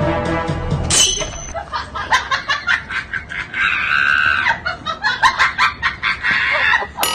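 A person laughing hard in rapid, high-pitched bursts that rise at times to a shriek. Music plays briefly at the start and stops about a second in.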